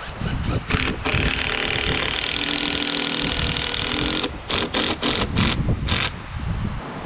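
Power drill driving screws: a few quick trigger bursts, a steady run of about three seconds, then a string of short bursts about four to six seconds in.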